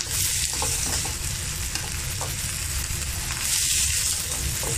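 Diced onion and vegetables sizzling in hot oil in a stainless steel honeycomb wok while a metal ladle stirs them, with light scrapes of the ladle on the pan. The sizzle swells twice as the vegetables are turned over, near the start and again about three-quarters through.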